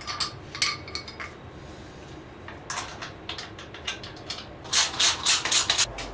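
Small metal clicks and clinks from a hand wrench and reflector mounting hardware as a fork-mounted reflector is unbolted from a dirt bike. The clinks come irregularly, with a quick run of louder ones about five seconds in.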